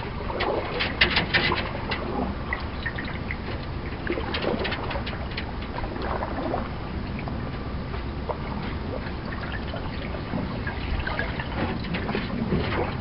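Paddling a canoe on calm water: paddle strokes splashing and dripping, with scattered crackles and clicks, over a steady low rumble of wind on the microphone.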